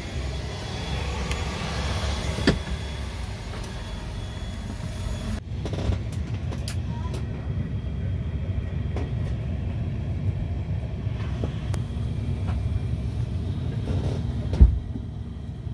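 Steady low rumble of an ATR 72-600's cabin parked on the ground, with a few sharp clicks and knocks, the loudest one near the end. The higher hiss drops away abruptly about five seconds in.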